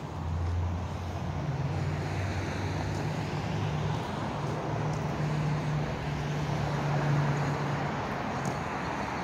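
City street traffic, with a vehicle engine running steadily close by as a low hum.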